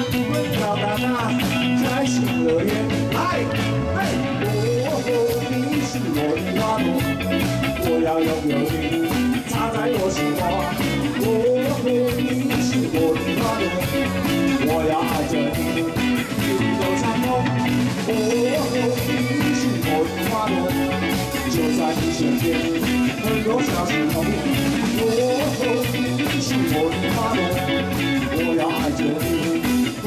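A live band playing a song on electric guitars, drum kit and keytar, loud and unbroken.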